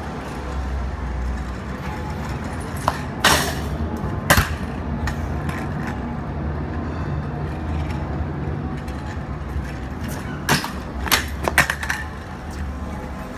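Street ambience: a steady low rumble of city traffic, broken by a few sharp clacks or knocks, two near the start and a quick cluster near the end.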